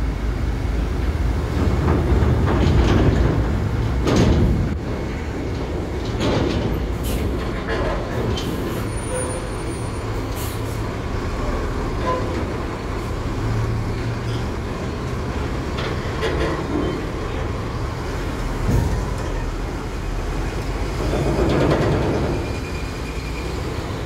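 Large diesel buses driving off a ferry: a deep, steady engine rumble with several sharp knocks and clanks as they cross the ramp.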